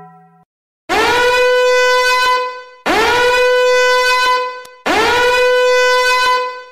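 Siren Head sound effect: three loud horn-like siren blasts about two seconds apart, each swooping up in pitch at the start, then holding one steady tone before cutting off.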